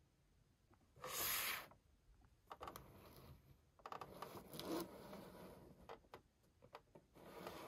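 Cardboard-and-plastic Funko POP toy box being handled and turned on a tabletop: a short loud scrape about a second in, then quieter rubbing and scraping with light clicks.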